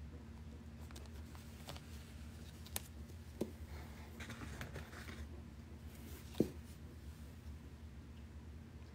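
Faint handling of tumbled stones in plastic zip bags: a light rustle of plastic about four to five seconds in and a few small sharp clicks, the loudest about six seconds in, over a steady low hum.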